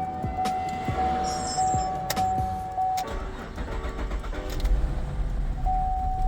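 2011 Chevy Camaro's 3.6-litre V6 being started, catching about three seconds in and then running unevenly. It is a rough start on an engine that has been misfiring on cylinders 1, 3 and 5.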